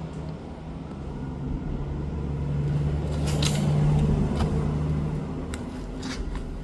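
A low rumble that swells to its loudest about four seconds in and then fades, with a few light clicks.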